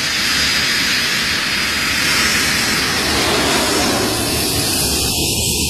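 Jet airliner engine sound effect in a song's intro: a steady, loud rushing noise that builds a little at the start and then holds.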